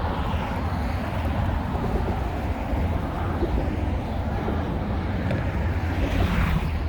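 Steady low rumble of highway traffic, swelling briefly as a vehicle passes about six seconds in.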